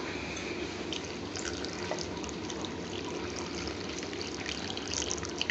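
Just over a pint of water being poured into a large pan of chopped onions, tomatoes and vegetables, a steady pour with small drips and splashes.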